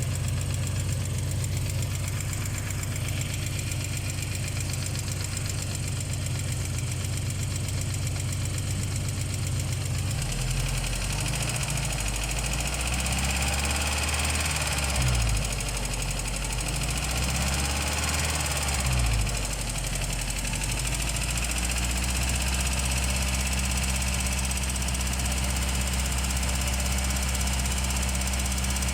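ZMZ-409 four-cylinder petrol engine running cold with a knock in the valve train, which the owner suspects is the hydraulic lash adjusters; the knock goes away once the engine is warm. The revs change about a third of the way in, rise and fall a couple of times, then settle steady.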